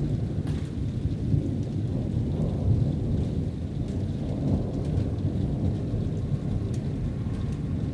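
Low, continuous rumbling of rolling thunder from an approaching thunderstorm, with a few faint ticks of rain over it.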